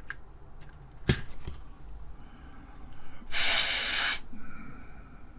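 A sharp click about a second in, then a loud, steady hiss of rushing air lasting just under a second.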